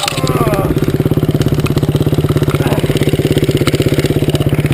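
Dirt bike engine idling, with a steady, rapid, even pulse.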